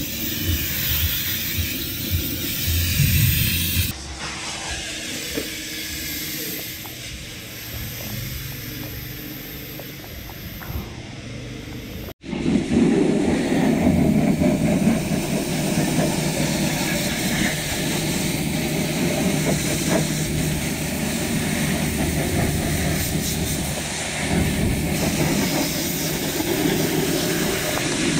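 Pressure-washer jet spraying a truck's tyre and plastic wheel-well liner: a steady hiss of water with spatter. After a short break about twelve seconds in, the spray is louder.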